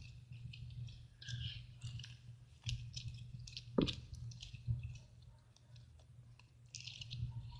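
Slime being kneaded and squeezed by hand, giving faint, scattered sticky clicks and squishes.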